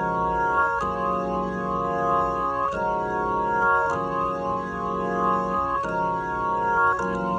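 Organ chords played through a Leslie 2101 rotary speaker cabinet. The chords are held and change every one to two seconds, and the tone wavers slightly with the spinning rotor.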